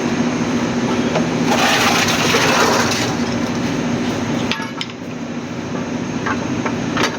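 A heavy truck brake drum being handled onto the hub: a scraping rush of metal, then several sharp metallic clinks and knocks. A steady hum runs underneath.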